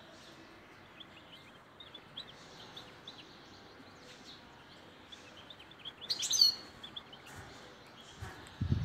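Caged European goldfinch singing: a run of short twittering chirps, with one louder call about six seconds in. A low thump near the end.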